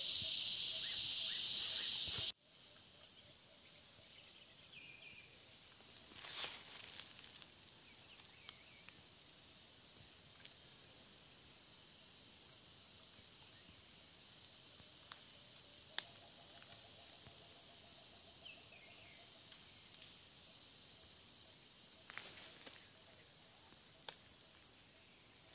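A loud, high hiss cuts off suddenly about two seconds in. After it comes a quiet outdoor background with a faint steady high insect tone and scattered crackles and snaps from footsteps in dry cut brush.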